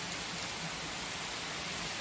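Steady rain falling: an even hiss with faint ticks of single drops.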